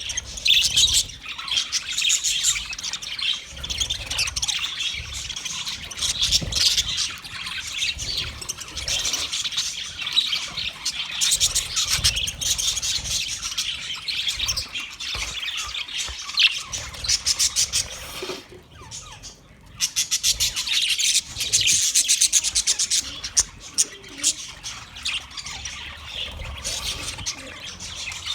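Budgerigars chattering: rapid, overlapping chirps and warbles that run on without pause except for a brief lull about two-thirds of the way through. A low rumble sits underneath.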